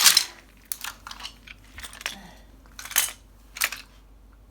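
Hard plastic toy pieces clattering and crunching under bare feet as they are stepped on: a loud clatter at the start, then smaller clicks and rattles about a second in and again around three seconds in.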